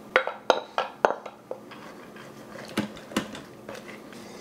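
Dry split peas tipped from a glass bowl into an Instant Pot's stainless steel inner pot: a string of sharp clinks and knocks of glass on metal, several close together in the first second and a half, then two more about three seconds in.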